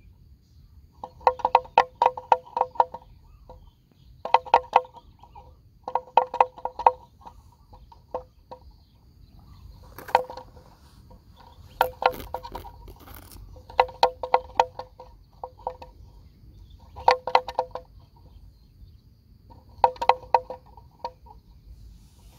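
A neck bell on a grazing water buffalo clonking in quick bursts of knocks at one steady pitch, each burst about a second long and coming every two to three seconds. A faint, steady, high insect whine runs behind it.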